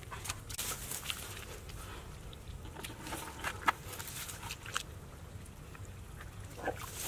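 Hands working in wet mud and grass: scattered small crackles, rustles and wet taps, with one sharper tap a little past halfway.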